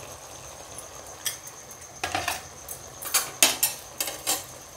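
A steel spoon clinks lightly against a steel bowl and the pan while salt is added: a few short clicks, most of them in the second half. Under them runs a faint steady sizzle from the gravy cooking in the pan.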